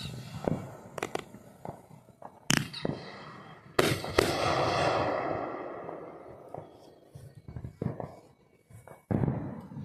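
Aerial fireworks going off: a string of sharp bangs in the first four seconds, the loudest about four seconds in. After that comes a dense rush of noise that fades over about two seconds, then a few scattered smaller pops near the end.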